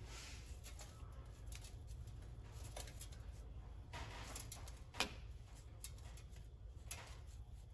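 A few faint, scattered clicks and taps of metal tooling being handled at the lathe's tailstock, as the center drill is swapped out for a drill bit, over a low steady hum. The loudest tap comes about five seconds in.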